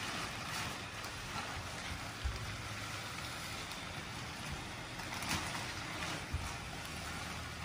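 Blower fan of an inflatable Christmas snowman running with a steady rushing hiss of air, with a couple of brief thumps.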